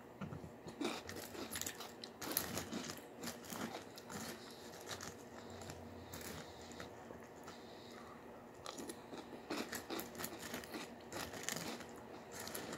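A person chewing a mouthful of Cap'n Crunch cereal in milk, with crisp crunching in two spells: one in the first few seconds and another near the end, quieter in between.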